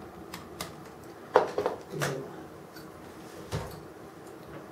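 Small sharp clicks and taps of hard parts being handled on a diecast model crane, the loudest click about a second and a half in and another near the end.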